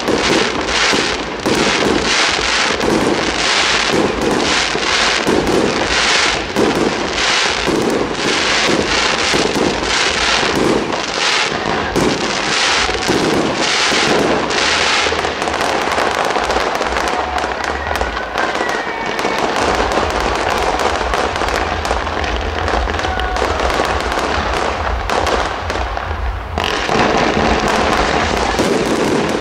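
Fireworks display: shells bursting in rapid succession, about two or three bangs a second for roughly the first fifteen seconds. After that they merge into a denser crackling run over a deep rumble.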